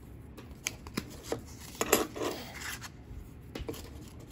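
Canadian silver dollars clinking against each other and tapping on a wooden tabletop as they are picked up and sorted into piles: a handful of separate light clicks, with a brief rustle around the middle.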